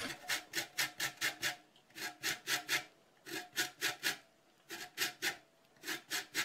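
A lemon's peel being grated on the fine side of a stainless-steel box grater for zest: quick rasping strokes, about four a second, in short runs with brief pauses between.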